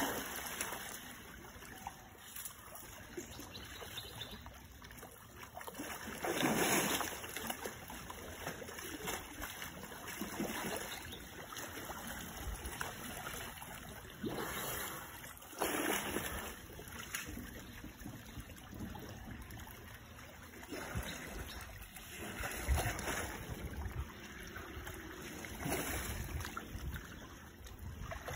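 Muddy water sloshing and splashing as elephants roll and wallow in a shallow pool, with a few louder splashes.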